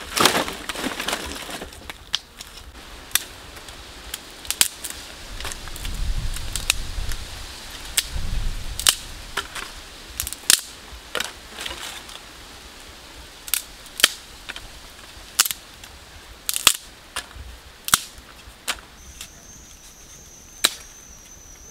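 Dry sticks snapping as firewood is broken by hand, sharp single cracks at irregular intervals. A steady high-pitched whine joins near the end.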